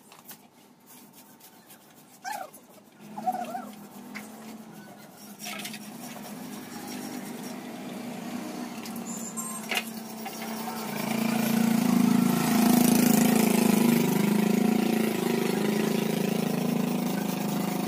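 An engine running steadily, growing clearly louder about eleven seconds in, with a few short knocks before it.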